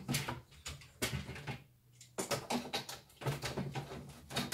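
Paper handling: the pages of a folded paper booklet rustling and tapping in a string of short, irregular clicks as they are pressed flat and squared up by hand on a cutting mat.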